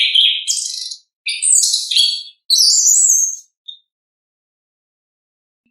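Chestnut-capped thrush singing: three loud phrases of rapid, jumbled high notes in quick succession, then a single short note, after which it falls silent about a third of the way from the end.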